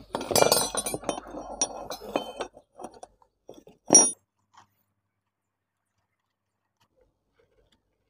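Steel tools clinking against the metal of a motorcycle front fork leg as an 8 mm T-handle wrench and hex key are fitted and turned on the fork's bottom Allen bolt, with light clinks over the first two seconds and one sharp ringing clink about four seconds in.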